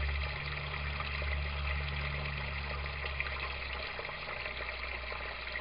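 Water trickling steadily through a U-siphon in an aquaponics grow-bed test rig, over a low hum that weakens about four seconds in. The siphon is stuck in equilibrium, draining continuously instead of cycling.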